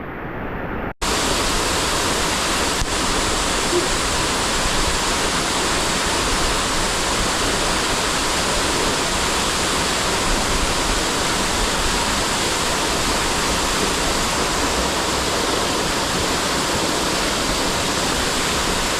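Waterfall rushing with a steady, dense roar of falling water, cutting in abruptly after a brief gap about a second in.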